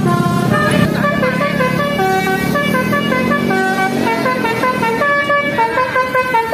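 Bus telolet basuri musical horn playing a fast stepped melody, the pitch jumping from note to note several times a second.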